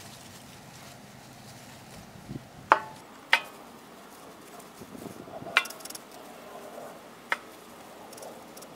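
Freshly pulled radishes dropped one by one into a galvanized metal tub: four sharp knocks, each with a brief metallic ring, with faint rustling of the radish leaves between them.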